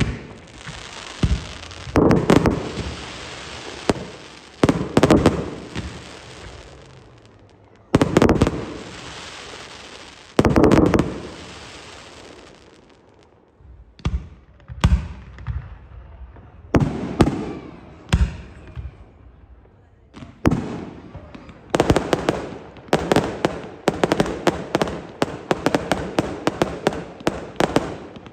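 Fireworks display: aerial shells bursting with sharp bangs, each followed by a long crackling hiss of falling stars. From about 20 seconds in, the bangs come thick and fast in a rapid barrage.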